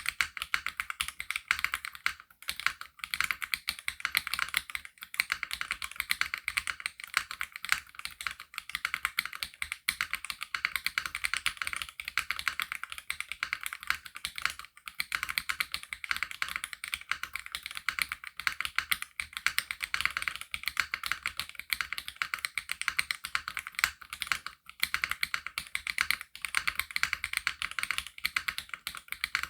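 Continuous fast typing on a Womier RD75 Pro gasket-mounted mechanical keyboard with Womier Full POM switches: a dense, even stream of light keystroke clicks.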